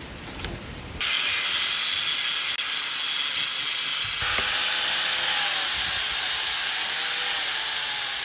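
Power tool running under load in an exhaust repair shop: a steady high hiss with a faint whine that slowly drifts in pitch. It starts abruptly about a second in and stops abruptly at the end.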